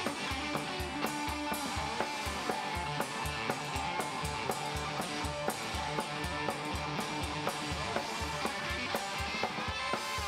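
A rock band playing live in an instrumental passage: two electric guitars, an upright double bass and a drum kit, with a steady beat.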